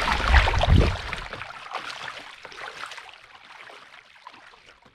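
Kayak paddle blades dipping and splashing in open water as the kayak moves along, with a low rumble in the first second or so; the sound fades out steadily to silence.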